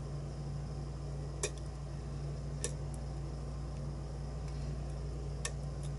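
Light metallic clicks of a lock pick working the pins inside a challenge lock: four or five scattered ticks over a steady low hum.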